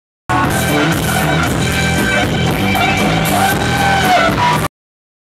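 Loud funk music played for a dance battle, cutting in abruptly about a third of a second in and cutting off abruptly near the end.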